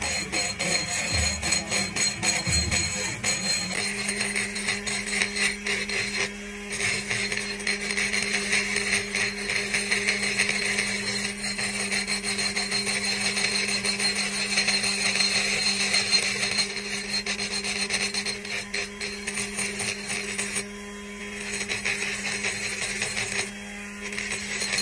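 Ryobi ONE+ HP 18V brushless cordless rotary tool grinding with a carbide burr inside a Predator 212 cylinder head port, porting the aluminium. The whine settles into a steady hum about four seconds in and lets up briefly a few times.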